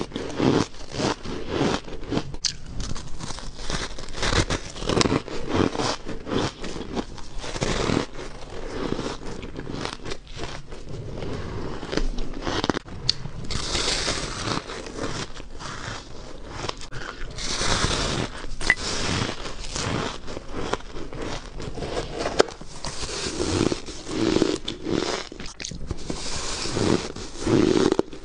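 Close-miked ice being bitten and chewed: a dense run of crisp cracks and gritty crunches, one bite after another.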